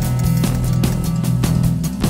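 Background music with a steady beat over a sustained low bass line.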